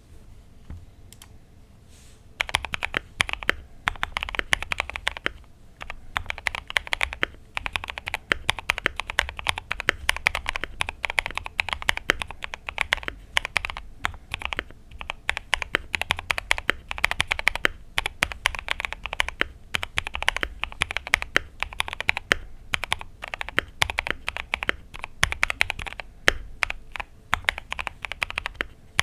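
Mechanical keyboard built from a Final Key V65 R2 kit with lubed Gazzew Boba LT 65 g linear switches and Akko ASA keycaps, typed on in a fast, continuous stream of keystrokes. A few isolated clicks come first, and the steady typing starts about two seconds in.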